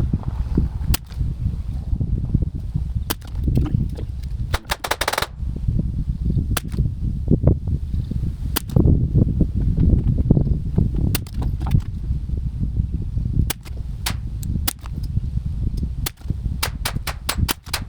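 Anschutz 1761 .22 LR rifle shots, played eight times fast so they come as sharp cracks at irregular spacing, with a quick run of them about five seconds in and again near the end. Steady wind rumble on the microphone underneath.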